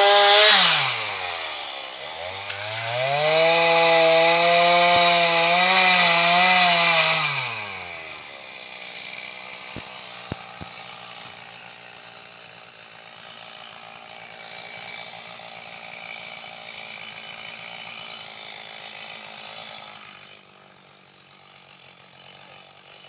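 Two-stroke chainsaw run at full throttle, dropping back briefly about a second in, then revved high again for several seconds, likely cutting a fallen tree. Around 8 s it falls back to a quiet steady idle, with a few sharp clicks a couple of seconds later.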